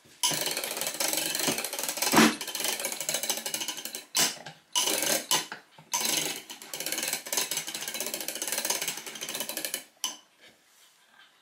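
Homemade plywood clock mainspring winder being hand-cranked, clicking rapidly in long runs with short breaks as the mainspring is wound into the spring holder, with one louder knock about two seconds in. The clicking stops about ten seconds in.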